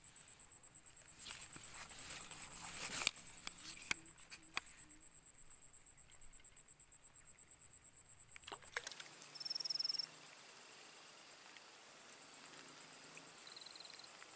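Insects trilling: a high, rapidly pulsing trill that gives way about nine seconds in to a steadier high insect buzz. A few light clicks and a short rustle come in the first few seconds.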